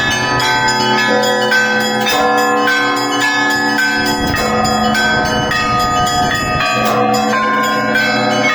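Russian Orthodox church bells rung together in a continuous peal, many bells of different pitches struck in quick succession so that their ringing tones overlap.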